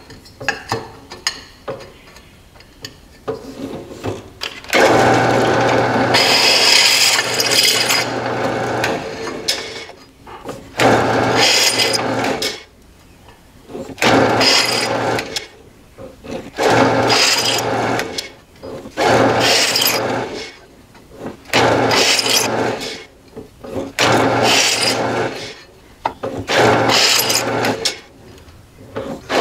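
Drill press drilling out the old rivet holes in the stock BMW rotor hat to 6 mm, running in repeated bursts with a steady motor hum under the cutting noise. After a few light clinks of handling, a long first run of about four seconds is followed by seven shorter runs of a second or two each, about a second apart.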